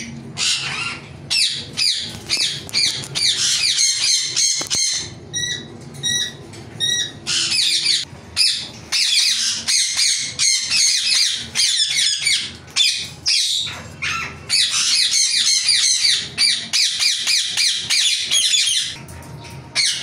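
Alexandrine parakeet calling loudly, harsh repeated screeches in long runs, with a few short separate notes about five seconds in.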